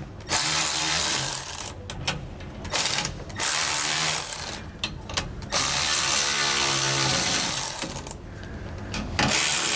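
Cordless electric ratchet running in about five short bursts, the longest in the middle, as it spins down and snugs the nuts on the U-bolts of a steering stabilizer bracket.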